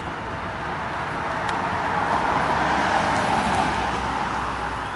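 A road vehicle passing close by on the street, growing louder to a peak a couple of seconds in and then fading away.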